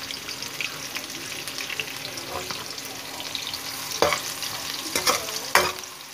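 Sliced onions sizzling in hot oil in a wok, a steady crackle, while a metal spoon stirs them. The spoon knocks sharply against the pan three times in the second half.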